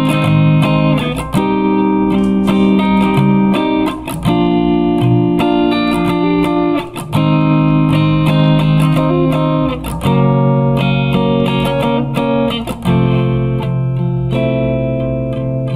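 Guitar playing a chord progression. Strummed chords ring out and change every second or two.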